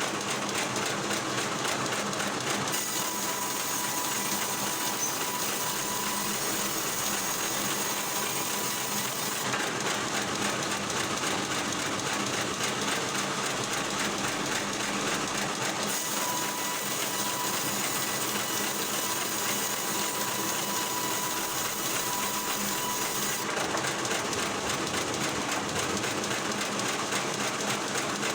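Wood-processing machinery running steadily, its sound changing in character every six or seven seconds.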